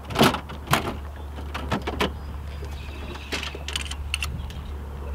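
Clicks and knocks of fishing tackle and a rod being handled on a boat deck while a slip-bobber rig is set up. The two loudest knocks come in the first second and a cluster of lighter clicks follows around three to four seconds in, over a steady low hum.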